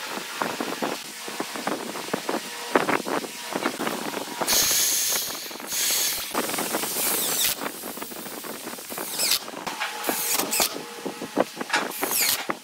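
Knocks and taps of pine parts being handled and set on the workbench, then a power drill boring into pine in several short bursts from about four seconds in, followed by a cordless impact driver driving screws near the end.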